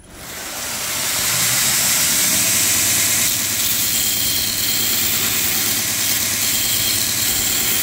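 Belt grinder starting up, building to full speed over about a second and a half, then running steadily with a loud hiss and hum while a knife handle scale is held against the belt to grind a chamfer along its edge.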